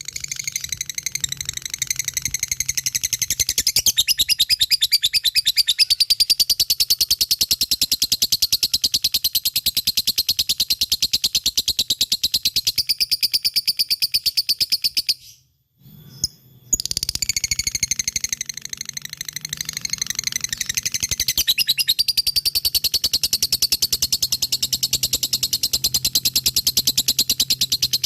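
Lovebird singing its long 'ngekek' chatter: a very fast, unbroken run of high, shrill chirps. It stops for about a second partway through, then starts again.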